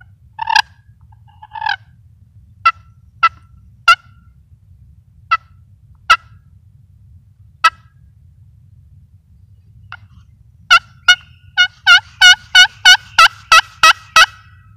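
Turkey calling: single sharp clucks spaced out over several seconds, then a quick run of about ten loud yelps at roughly three a second near the end.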